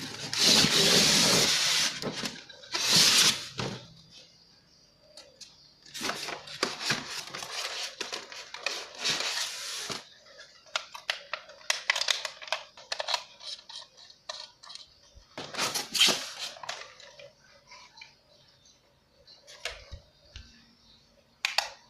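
Unboxing an RC toy excavator: packaging rustles loudly for the first few seconds, then comes irregular clicking and clattering of hard plastic as parts are handled.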